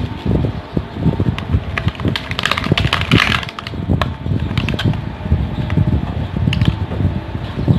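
Clear plastic mushroom packaging crinkling and rustling as beech mushrooms are pulled out of their tub by hand, with a burst of crinkling in the middle and scattered light clicks, over a steady low rumble.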